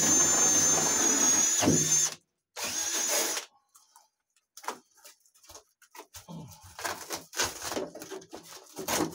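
Small cordless drill with a wire cup brush scrubbing rust off a car's steel floor pan: the motor whines steadily for about two seconds, then runs again briefly. Scattered short scraping and knocking noises follow.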